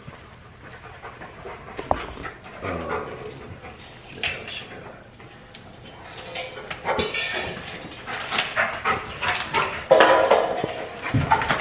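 Dog panting in quick, noisy breaths that grow louder and faster over the last few seconds.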